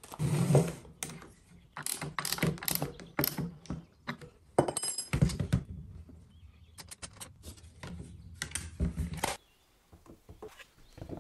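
Metal router parts being handled on a wooden workbench: a template guide bush and base rings clicking and clattering against the plunge router's base in a string of short knocks and clinks, with a brief metallic ring about five seconds in.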